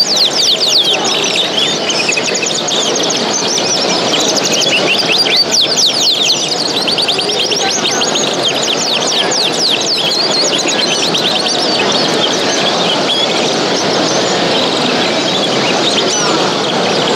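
Many small caged show birds chirping and twittering at once, a dense chorus of quick high chirps, over a steady murmur of crowd voices.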